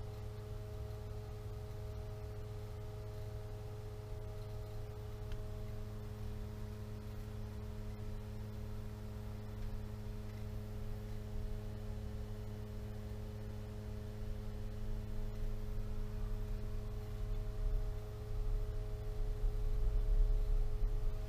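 Pentair SuperFlo variable-speed pool pump running steadily at low speed, a constant hum of several steady tones. A low rumble swells near the end.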